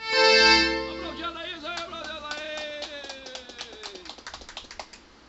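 Piano accordion ending a tune on a held final chord that fades out about a second in, followed by scattered hand clapping.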